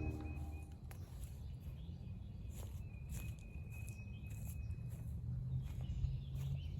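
Footsteps of someone walking a woodland trail, a series of soft steps over a low rumble, with a high thin steady call sounding twice.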